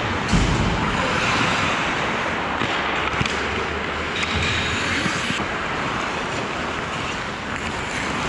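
Ice hockey play close to the goal: a steady rush of skates on the ice and rink noise, with a few sharp knocks of sticks and puck.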